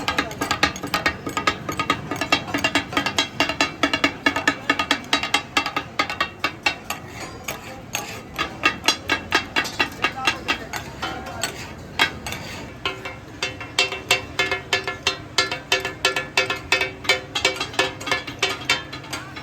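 Metal spatula blades rapidly striking and chopping on a flat iron tawa, a rhythmic metallic clatter at several strikes a second, as offal is chopped and stirred for katakat.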